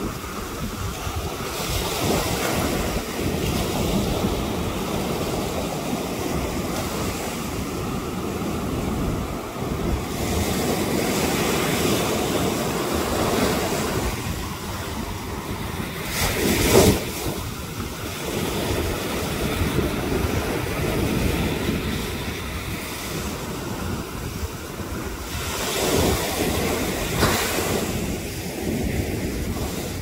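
Surf on a sandy beach: waves breaking and washing up the shore in a continuous rushing sound that swells and falls every few seconds, with wind buffeting the microphone and one brief louder burst a little past halfway.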